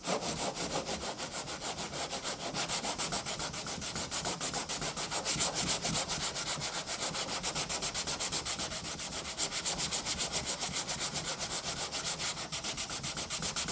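Hand sanding with 80–100 grit sandpaper on a sanding block over a cured fiberglass resin patch on a car body panel, in quick, even back-and-forth strokes, several a second. This is the rough leveling pass that knocks the hardened fiberglass filler down.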